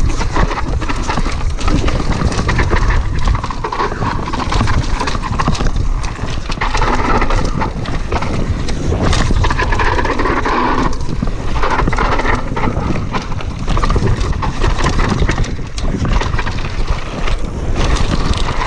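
Cross-country mountain bike descending a rough dirt-and-rock trail at speed: wind buffeting the action camera's microphone, with tyres rolling over dirt and rock and a steady run of knocks and rattles from the bike.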